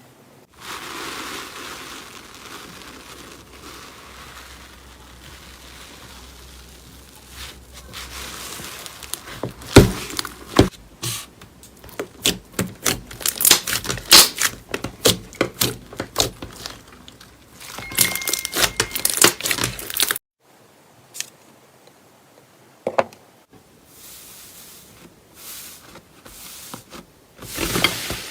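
Hands working slime, making quick crackling and clicking pops. The pops come thick and fast for about ten seconds, then stop suddenly, leaving only a few faint clicks.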